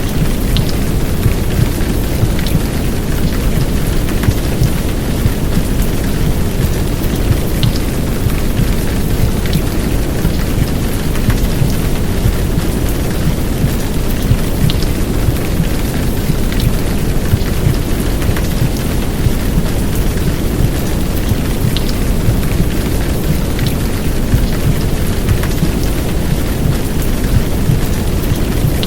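Heavy downpour of rain mixed with a womb-sound track: a steady, deep, muffled rumble and heartbeat under white noise, used to soothe a crying baby to sleep.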